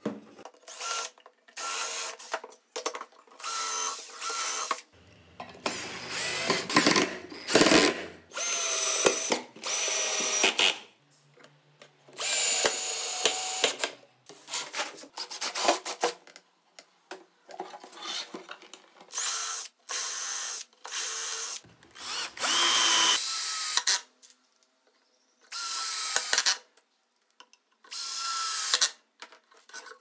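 Power drill driving wood screws into a wooden drawer, running in about a dozen short bursts of a second or two with pauses between.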